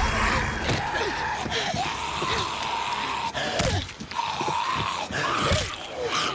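Zombie growling and snarling as it grapples with a person, with grunts and gasps of the struggle and a few sharp thuds.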